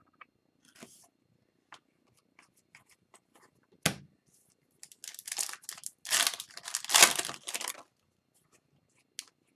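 A hockey card pack's wrapper being torn open and crinkled by hand, in quick ripping rustles lasting about three seconds, after a few light clicks of cards being handled and one sharp tap about four seconds in.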